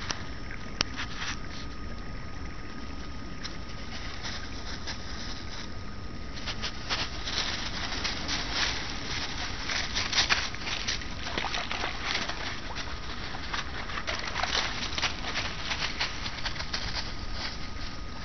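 Dry fallen leaves crunching and rustling underfoot, irregular crackles that grow denser about six seconds in.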